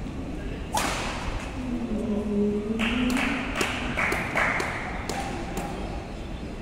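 A badminton racket strikes a shuttlecock hard a little under a second in, echoing in the hall. Then comes a short shout, followed by a quick scatter of sharp smacks, about three a second.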